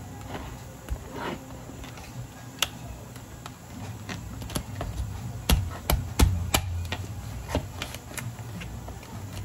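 A cleaver chopping through a cooked crab on a wooden cutting board: irregular knocks and cracks of shell, with a cluster of the sharpest chops a little past halfway.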